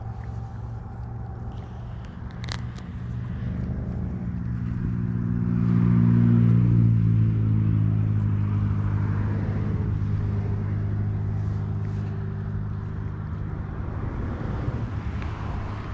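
A motor engine passing by with a low, even drone. It grows louder to a peak about six or seven seconds in, then slowly fades. There is one sharp click a couple of seconds in.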